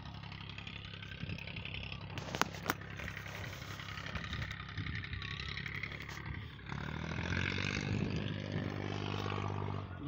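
An engine running steadily, growing louder about two-thirds of the way in, with two sharp clicks a little over two seconds in.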